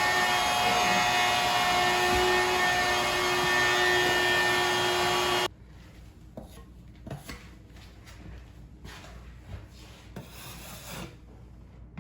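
An electric motor running steadily with a whine, cut off abruptly about five and a half seconds in, followed by light scraping and small knocks.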